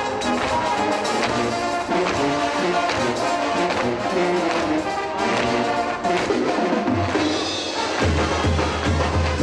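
Sinaloan banda-style brass band music: trumpets and trombones playing the tune over drums. Near the end a strong bass line comes in, pulsing on the beat.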